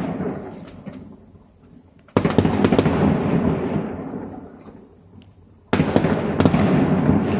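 Fireworks salute: two big shell bursts, one about two seconds in and one near three-quarters of the way through. Each starts with a sudden boom that rolls away over a few seconds, with scattered sharp crackles between them.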